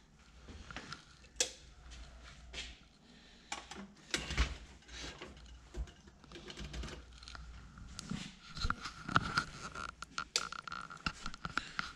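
Scattered clicks, knocks and handling noises as a hand presses buttons and switches on old computer equipment. A thin steady tone joins in about two-thirds of the way through.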